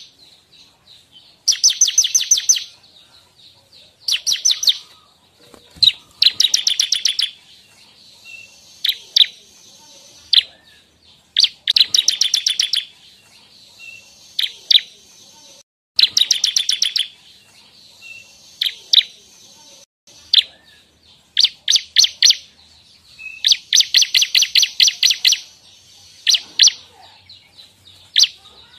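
Bar-winged prinia (ciblek) singing: loud, high bursts of rapid chipping notes, each burst about a second long and repeated again and again, with single sharp notes scattered between them.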